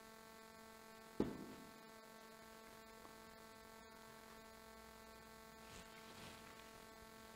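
Near silence: a steady electrical hum of room tone, with a single sharp click about a second in.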